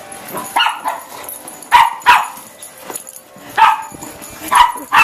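Dog barking in play, about five or six short, sharp barks at uneven intervals.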